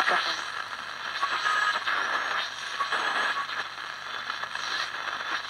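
2P3 superheterodyne medium-wave AM transistor radio hissing and crackling with static as it is tuned between stations, with a few brief whistles.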